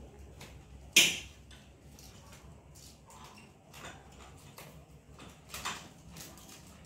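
Packaging and small parts being handled on a wooden table: light rustling and soft clicks, with one sharp knock about a second in as something is set down or knocked against the table.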